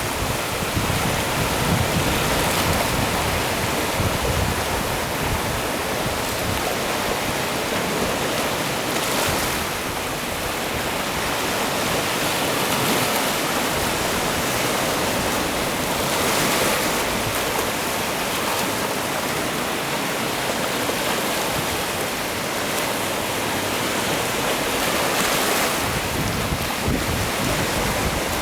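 Mediterranean Sea waves: a continuous wash of surf that swells now and then, with wind rumbling on the microphone.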